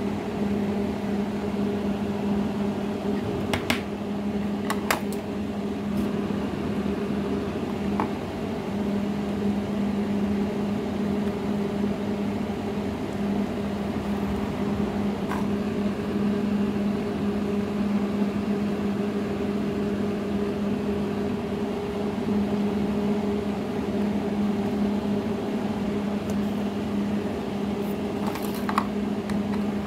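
Steady machine hum, a low drone with a higher tone above it, with a few light clicks scattered through it.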